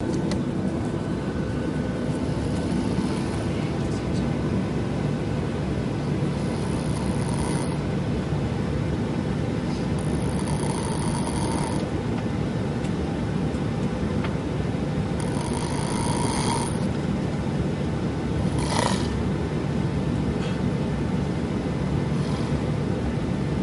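A person snoring, a snore every few seconds, over the steady drone of an airplane cabin.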